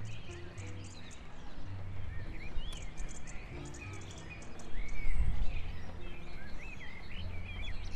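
Background music of soft, held low notes with birds chirping and twittering over it, and a low rumble swelling about five seconds in.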